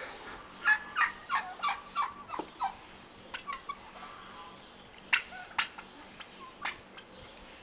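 Domestic turkey gobbling: a fast run of about seven short falling notes in the first few seconds, followed by a few scattered single calls.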